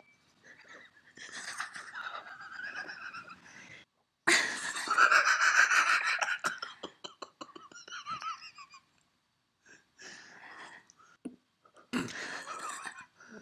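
A person laughing in bouts of high-pitched giggles and gasping breaths. The biggest fit comes about four seconds in and breaks into quick stuttering 'ha-ha' pulses.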